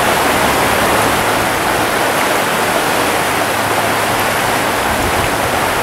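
Steady rush of a shallow stream running over rocks and riffles.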